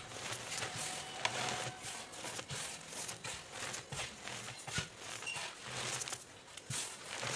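Pressed gym chalk reforms being crushed: a run of irregular, dry crunches and crackles, several a second.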